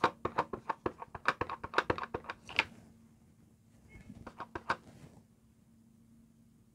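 Clear stamp on an acrylic block tapped again and again onto a plastic-cased ink pad to ink it: a quick run of light clicks, about five or six a second, for roughly two and a half seconds, then a second shorter run about four seconds in.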